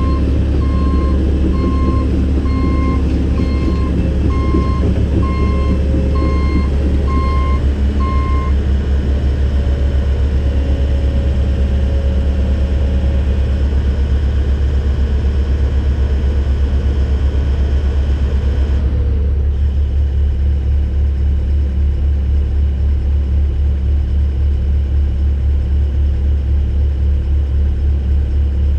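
Heavy diesel engine running with a steady low rumble while a travel/backup alarm beeps at an even pace, about one and a half beeps a second. The beeping stops after about eight seconds and the engine keeps running. This fits a CAT 313 excavator moving onto a trailer.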